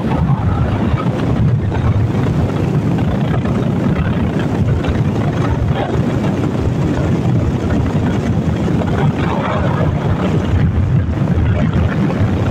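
Wind buffeting the microphone of a moving motorcycle, a loud steady rush heavy in the low end, with the bike's running and road noise underneath.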